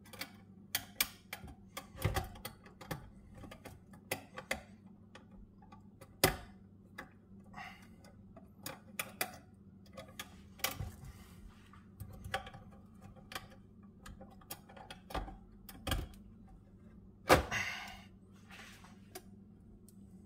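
Irregular metal clicks and knocks from a riding mower's deck-height lift lever and its linkage being worked by hand, with a louder clank about 17 seconds in.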